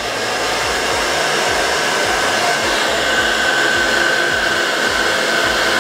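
Hand-held hair dryer running steadily on medium heat: an even rushing hiss with a thin steady whine. It swells over the first second, then holds.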